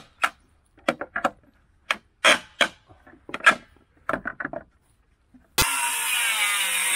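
Short, irregular knocks and clacks of work on wooden boards, then about five and a half seconds in a power woodworking machine abruptly comes in, running loudly and steadily with a low hum.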